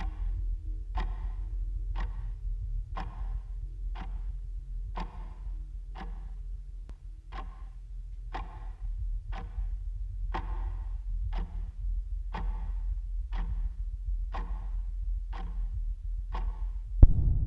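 Clock ticking steadily, about once a second, over a steady low rumble. A single louder thud lands near the end.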